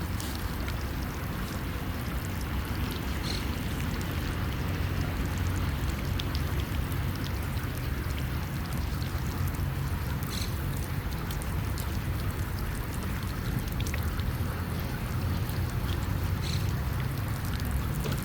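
Sea water washing and splashing at the shoreline, with a steady low rumble of wind on the microphone and a few faint ticks.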